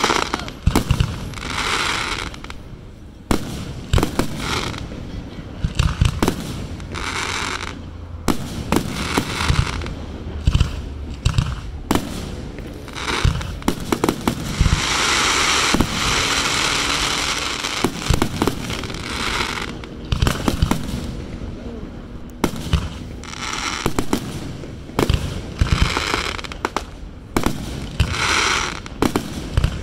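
Fireworks display: aerial shells bursting in quick succession, many sharp bangs, with hissing spells about a second long between them and a longer one of about three seconds midway.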